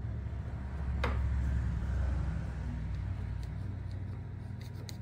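Steady low hum in a small workshop room, with one sharp click about a second in and a few faint light ticks near the end as hands handle an axe head clamped in a bench vise.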